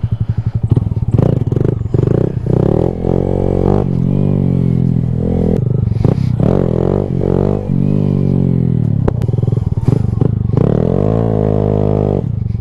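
Honda Grom's single-cylinder engine accelerating. Its note climbs and drops back three or four times as the bike pulls away through the gears.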